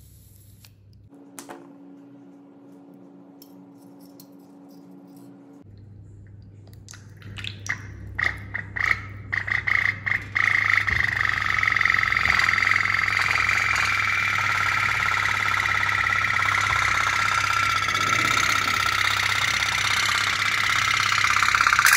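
Tin toy pop-pop steam boat, its candle-heated boiler starting up: a few separate pops about seven seconds in, quickening into a continuous rapid putt-putt rattle from about ten seconds in. A faint steady hum is heard for a few seconds near the start.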